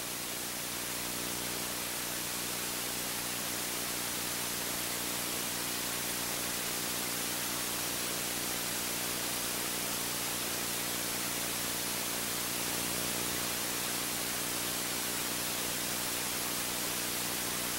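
Steady, even hiss of recording noise with a faint thin high whine and low hum, and no other sound.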